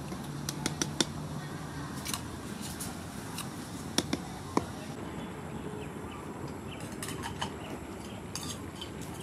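Metal ladle clinking against the side of an aluminium pot while palm sugar is stirred into water, a series of sharp, irregular taps over a steady background hiss.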